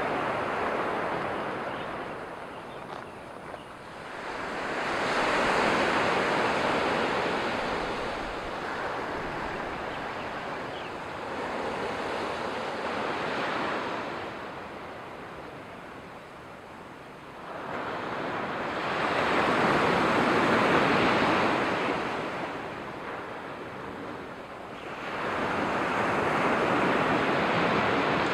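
Sea surf breaking on a gravel beach: a steady rush that swells as each wave comes in and fades as it draws back, four times, several seconds apart.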